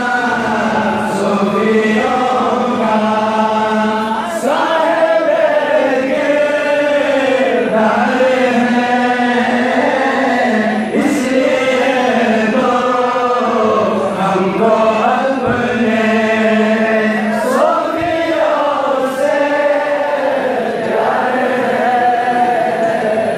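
Male voice singing a Sufi tarana (devotional anthem) in a chanting style through a microphone and loudspeakers, in long held notes that glide between pitches.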